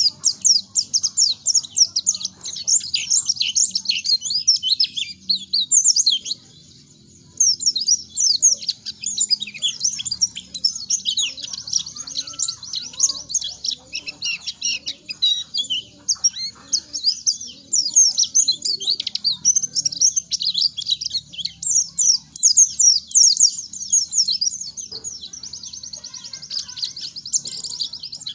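White-eye (pleci) singing a long, fast, high-pitched twittering song of rapid chirps, almost without a break; it stops for about a second around a quarter of the way through and then resumes.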